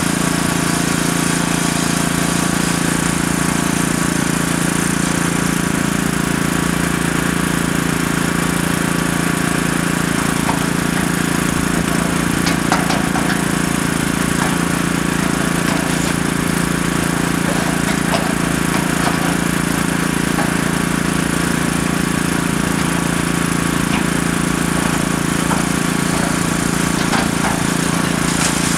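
Excavator's diesel engine running steadily at a constant pitch while it scoops demolition debris, with a few sharp knocks and clatters of wood and rubble now and then.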